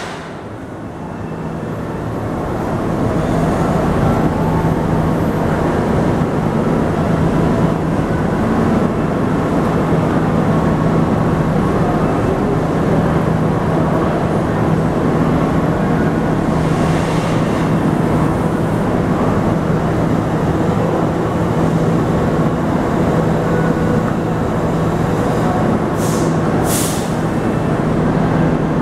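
Vintage subway train standing at the platform with its onboard equipment running: a steady, loud hum, with short hisses about 17 seconds in and again near the end.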